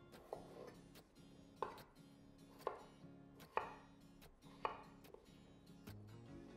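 Santoku knife cutting through raw peeled potatoes onto a wooden cutting board: five sharp chops, roughly one a second, the last about two-thirds of the way in.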